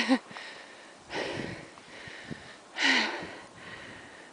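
A person breathing hard after a tiring climb through deep snow: two heavy, hissy breaths, about a second in and near three seconds in, the second the louder.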